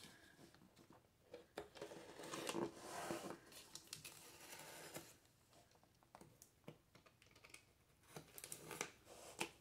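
Box cutter blade slitting the packing tape along the edges of a cardboard box: faint scraping and small ticks of the blade through tape and cardboard, with a longer scrape about two to three seconds in.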